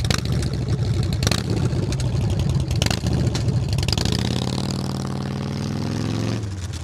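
Harley-Davidson V-twin motorcycle engine running loud and revving as the bike pulls away. Over the last few seconds its pitch glides and it eases off slightly, then cuts off at the end.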